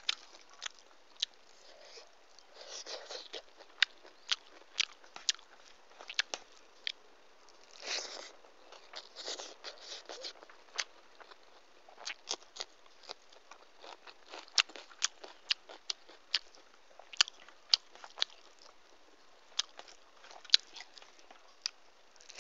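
Close-miked chewing of hand-fed rice and dal, with many sharp, wet mouth clicks at an uneven pace and a few brief, softer rustles.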